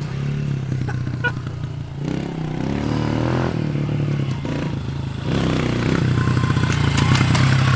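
A 110cc dirt bike engine running under throttle, getting louder about two-thirds of the way through, with clattering and scraping as it rides at and onto a Geo Metro's body.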